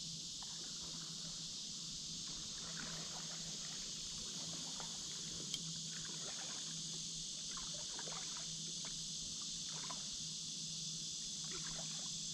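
Paddle strokes splashing and dripping in the water at an easy, irregular pace, over a steady high insect chorus. One sharp click comes about halfway through.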